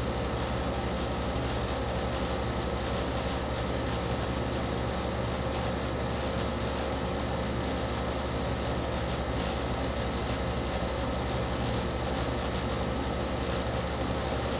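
A steady low droning hum with an even hiss and a couple of faint steady tones, unchanging throughout.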